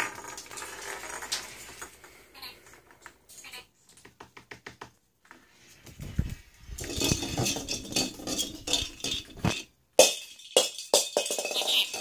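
Hollow plastic toy balls rattling and clattering on a hard floor as a dusky lory pushes and noses them, with sharp clicks as the balls are knocked about. About halfway through comes a louder stretch of low rumbling rolling and rattling, and near the end a few loud sharp clacks.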